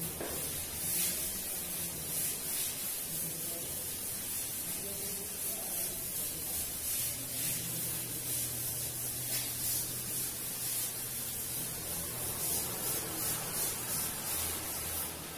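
Chalk being wiped off a blackboard: repeated rubbing strokes making a dry hiss, over a low steady hum.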